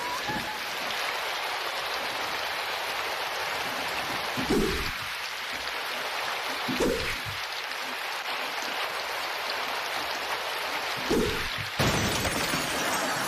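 Heavy rain falling steadily, with a few dull thumps about four and a half, seven and eleven seconds in. The sound changes abruptly about twelve seconds in.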